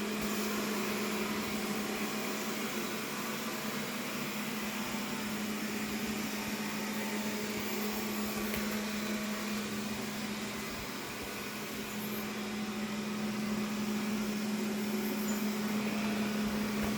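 First-generation Xiaomi robot vacuum running: a steady motor hum with a constant low tone, briefly a little quieter about ten to twelve seconds in.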